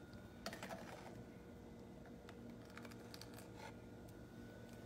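A spoon stirring sugar syrup into crushed strawberries in a ceramic bowl, heard only as a few faint, soft clicks and scrapes over near silence.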